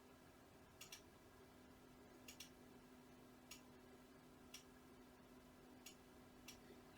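Near silence: a steady low hum with faint, sharp clicks, about eight of them, a few coming in quick pairs.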